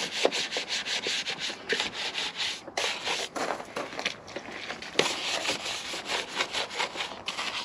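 Brush scrubbing wet, soapy engine-bay surfaces: quick, repeated scratchy back-and-forth strokes of stiff bristles.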